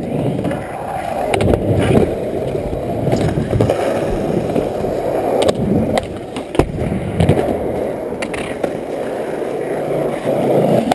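Skateboard wheels rolling over the skatepark surface with a steady rumble, broken several times by sharp clacks of the board's tail popping and the board landing.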